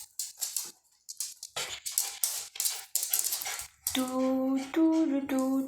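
A small dog breathing in quick, noisy bursts. From about four seconds in, a girl hums a tune in short, steady notes.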